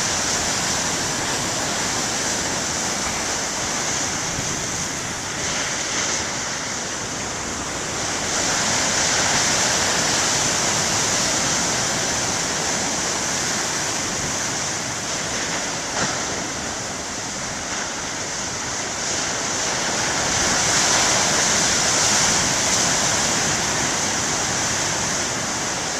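Big ocean waves breaking and washing up on the beach: a steady rushing of surf that swells louder twice, about eight seconds in and about twenty seconds in.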